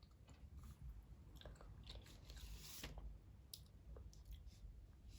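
Faint chewing and small wet mouth clicks of a toddler eating gummy candy, with a slightly louder rustle a little past the middle.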